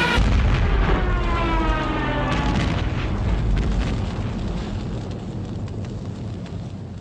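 A deep rumble of explosions, with a whistle-like sound gliding downward through its first few seconds. The rumble then slowly fades.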